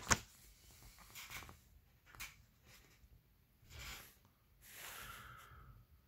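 Pages of a glossy paper catalog being turned by hand: a sharp page flip right at the start, then several softer rustles and slides of paper.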